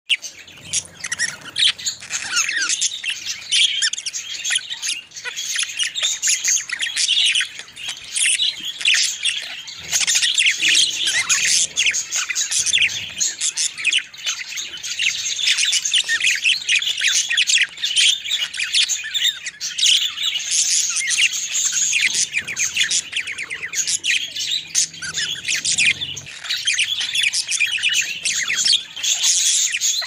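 Budgerigars chattering and warbling: a continuous stream of quick, high chirps mixed with squawks, with no pauses.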